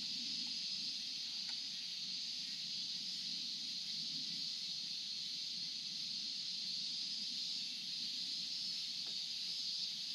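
A steady, unbroken high-pitched buzz of insects in the trees, with a faint low hum underneath.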